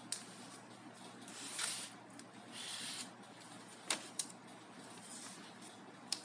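Plastic pry tool working a laptop's plastic cover off its snap lock: short scraping rubs of plastic on plastic and a few sharp clicks as the catch gives.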